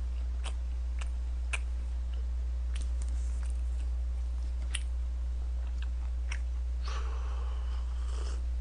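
Close-up eating sounds: scattered wet mouth clicks from chewing, then near the end a slurp of broth drunk straight from a cup-noodle cup, over a steady low electrical hum.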